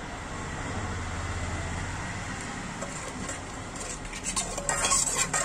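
Oil and gravy heating in a pot on a gas stove with a steady low hiss, then several metal clinks and scrapes of a utensil against cookware in the last second or so.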